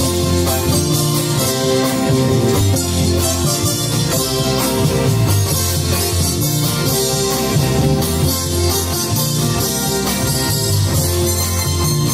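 Colombian Andean string ensemble of tiples, requintos and guitars playing a torbellino, a steady strummed and plucked folk dance tune with a moving bass line.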